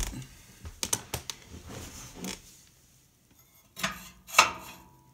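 Steel secondary air tube clinking and scraping against the firebox's metal as it is worked loose at an angle, then two sharp metal knocks near the end, the second one ringing.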